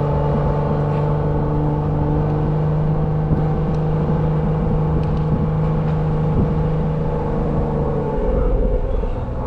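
Jeep Wrangler engine running steadily while under way towing a skier, its note dropping near the end as it slows.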